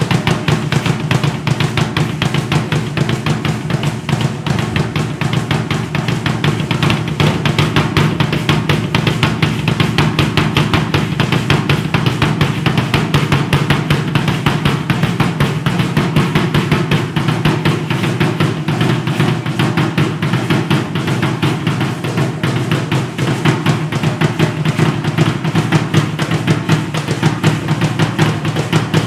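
Loud, rapid drumming that keeps up a steady, unbroken beat, with heavy low drum hits throughout.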